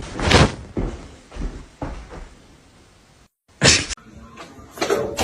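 A series of thumps and knocks, the loudest about half a second in, then a few weaker ones, and another loud bang after a short break.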